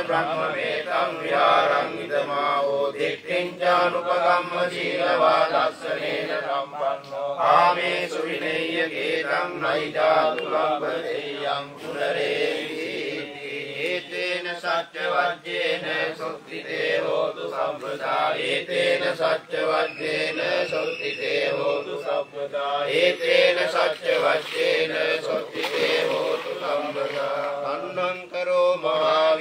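Buddhist pirith chanting in Pali: a continuous recited chant with a steady, unbroken flow.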